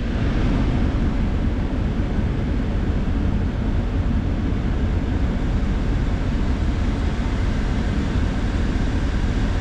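Steady rush of air from the dash vents as the truck's AC blower fan runs, with the 6.2-litre V8 idling underneath. The freshly replaced AC compressor is engaged.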